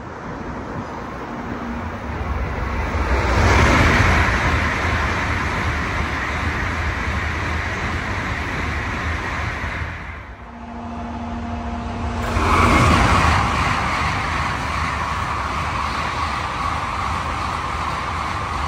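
Tokaido Shinkansen bullet train rushing through the station at high speed: a roar of wind and wheel noise that swells to a peak, holds, dips briefly about ten seconds in, then swells again and holds before fading.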